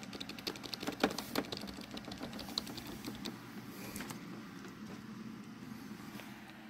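A computer keyboard's Delete key is tapped over and over to enter the BIOS setup as the PC boots. There is a quick run of key clicks in the first second and a half, then a few scattered clicks.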